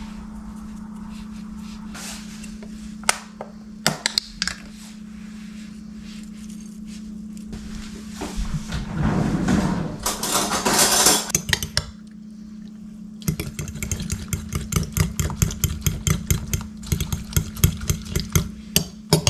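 A fork beating eggs in a ceramic bowl, a fast run of clinks several times a second, starting about two-thirds of the way through. Before it come a few light clinks of a spoon and a glass jar and a short noisy swell, all over a steady low hum.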